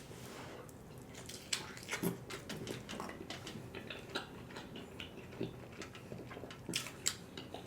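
Close-miked mouth sounds of a man chewing KFC fried chicken: many small, irregular wet clicks and smacks.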